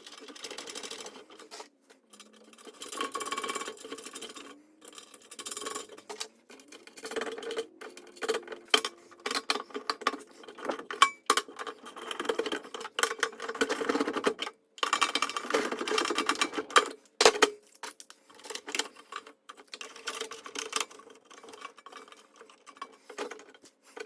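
Irregular clicking, rattling and scraping of small hard objects being handled, with a faint steady tone underneath.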